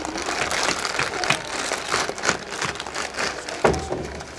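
Plastic Maggi noodle packet crinkling as it is handled and opened, with a single sharper knock near the end.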